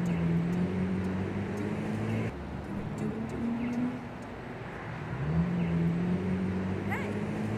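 City street traffic noise, with a low humming tone that slides up and holds for about two seconds, twice.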